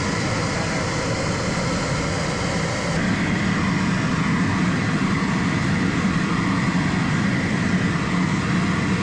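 Tractor engine running steadily, a continuous mechanical drone that gets slightly louder about three seconds in.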